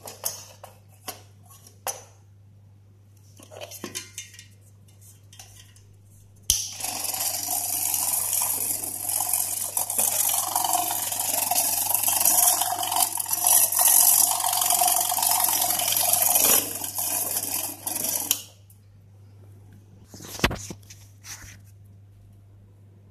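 Electric milk mixer's motor switched on with its beater spinning in the air, running loudly with a harsh, noisy whir for about twelve seconds, then stopping. Before it, a few light knocks and clicks of the metal parts being handled, and one sharp knock after it.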